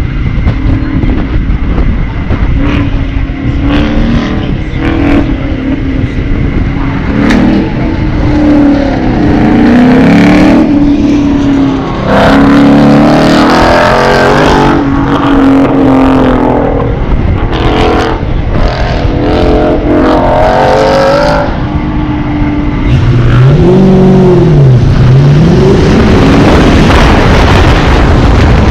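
A 2001 Ford Mustang GT's V8 engine running, heard from inside the car, with engine speed rising and falling while the car waits at the start line. It gets louder and stays loud for the last several seconds as the car pulls away onto the course.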